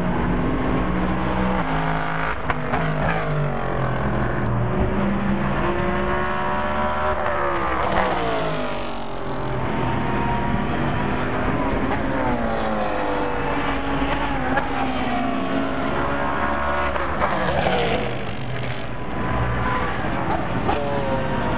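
Several race car engines running at once, their pitches rising and falling as the cars rev through the corner, with cars passing close and loudest about eight and eighteen seconds in.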